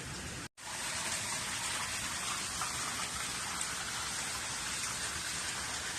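Strong wind after a typhoon: a steady rushing hiss, cut off by a brief gap about half a second in.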